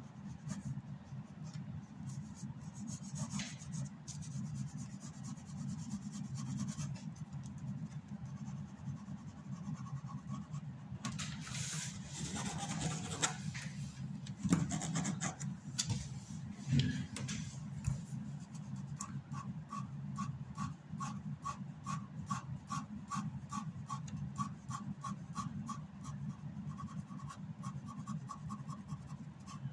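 Black ink pen scratching across drawing paper in short hatching strokes, settling into an even run of about three strokes a second in the second half.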